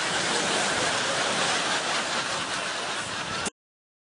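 A steady rushing noise that cuts off abruptly about three and a half seconds in.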